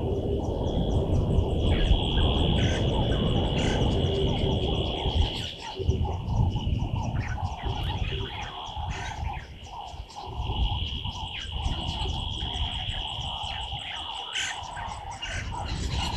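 African bush ambience: wind gusting on the microphone, strongest in the first few seconds, over a steady high insect drone and scattered bird calls.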